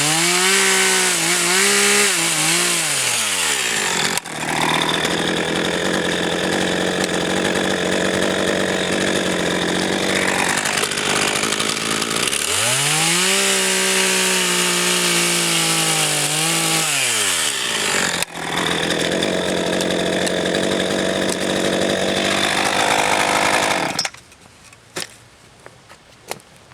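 RedMax GZ400 two-stroke chainsaw revving up and sawing through oak firewood logs, the engine pitch rising as it comes up to speed and falling back twice between cuts. The saw goes quiet abruptly near the end.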